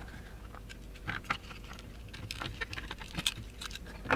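RS-14 multimeter's plastic case being opened by hand: a scatter of small plastic clicks and ticks as the case halves come apart, with a sharper click near the end.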